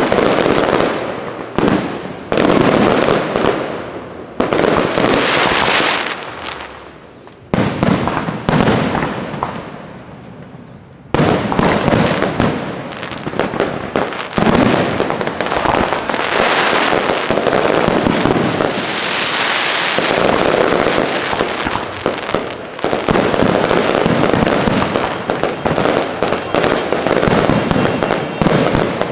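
Aerial fireworks display: shells bursting in quick succession with crackling, thinning out for a few seconds early on, then a dense, almost unbroken barrage of bursts from about eleven seconds in.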